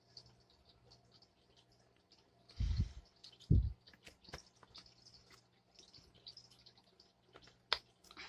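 Soft clicks and scratchy rustles of a silver coin and its plastic sleeve being handled, with two dull thumps about three seconds in.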